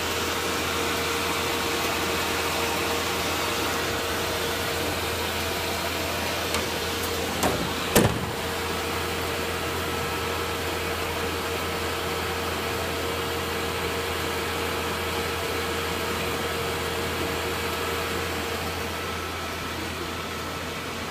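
HP Indigo WS2000 digital label press running while it prints a test chart on self-adhesive label stock: a steady mechanical drone with a low hum and a steady tone that fades near the end. Two sharp clicks come about seven and a half and eight seconds in.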